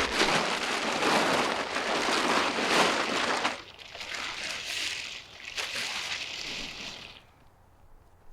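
Angle grinder grinding the edges of a steel anvil to dress them. It gives a harsh, hissing grind for about three and a half seconds, then grinds more lightly and quietly until it stops about seven seconds in.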